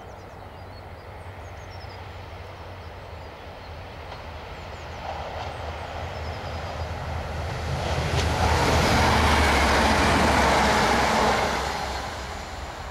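Sprinter-type diesel multiple unit approaching along the line, growing steadily louder, then passing close by with a loud rush of engine and wheel-on-rail noise about eight seconds in, before fading.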